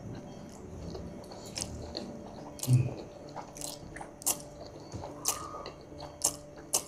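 Instant noodles being slurped and chewed: a string of short, sharp slurps and wet mouth sounds, about one a second, the loudest nearly three seconds in.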